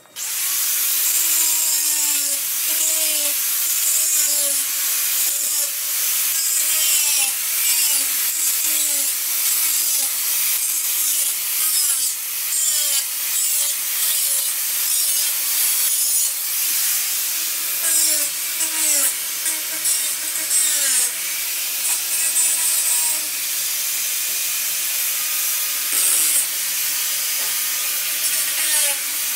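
Angle grinder cutting through the metal hog rings that clamp seat upholstery to a steel seat frame. It starts suddenly and runs throughout with a loud hiss, its pitch sagging and recovering again and again as the disc bites and lets go.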